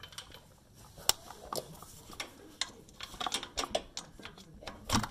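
Irregular clicks and taps of a small pry tool working at a plastic wheel-speed sensor wire clip in its bracket. The sharpest click comes about a second in, and another comes near the end.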